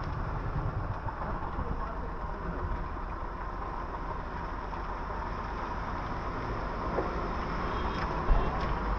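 Steady vehicle and engine noise with a low rumble, and faint voices in the background.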